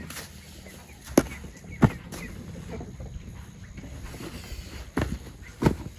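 Sharp knocks of rocks being set down and knocked into place, four in all: two between one and two seconds in, and two near the end.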